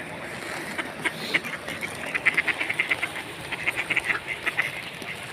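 A flock of mallards quacking: a fast run of short quacks starts about a second in, is busiest a couple of seconds later, and thins out near the end.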